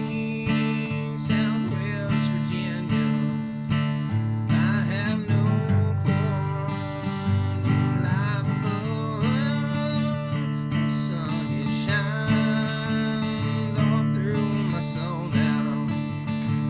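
Background music led by strummed acoustic guitar, with a melody line over it.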